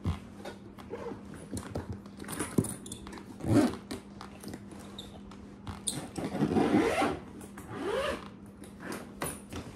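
Zipper on packed luggage being pulled shut in several irregular strokes, with short rasping sweeps as the slider is worked along.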